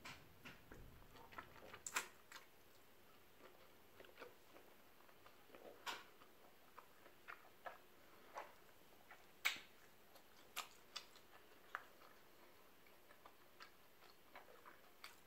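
Quiet eating of a crab-leg seafood boil: faint chewing with irregular sharp clicks and taps from the shells and container, the loudest about halfway through.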